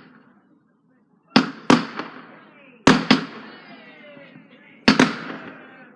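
Fireworks going off: three pairs of sharp bangs spaced about a second and a half apart, each bang trailing off.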